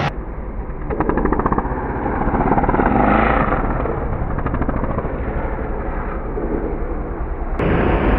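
Motocross dirt bikes racing, their engines revving up and down as they ride past. The sound changes abruptly near the end.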